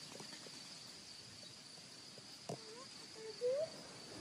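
Steady high-pitched insect song from the grass, running unbroken. A single sharp knock comes about midway, and a brief rising call, the loudest sound, comes near the end.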